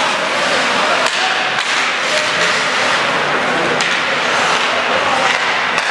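Ice hockey play: a steady scraping hiss of skates on the ice, broken by about five sharp clacks of sticks on the puck and on each other.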